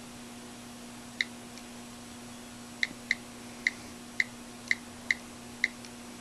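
iPhone on-screen keyboard key clicks as a word is typed: about eight short, sharp ticks at uneven spacing, one about a second in and the rest coming quicker in the second half, over a faint steady hum.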